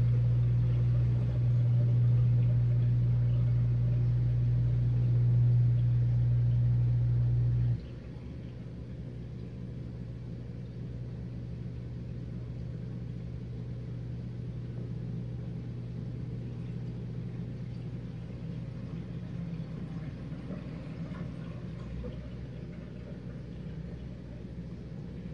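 Whirlpool dishwasher's pump motor running with a loud steady hum, cutting off abruptly about eight seconds in and leaving a quieter steady hum. This marks the end of a short pre-wash.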